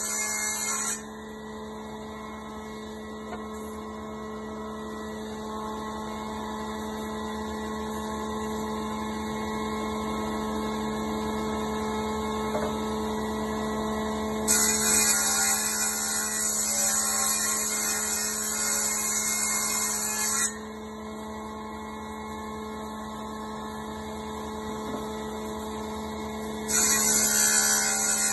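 Electric surface planer (jointer) running with a steady hum. Three times the spinning cutter head bites into a wooden plank, adding a loud, high hissing whine: briefly at the start, for about six seconds from about halfway, and again near the end.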